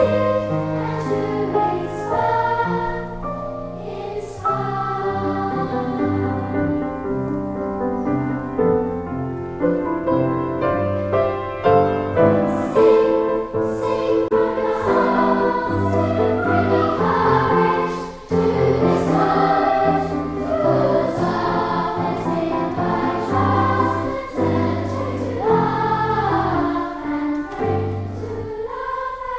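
A choir singing a hymn with instrumental accompaniment and a steady bass line.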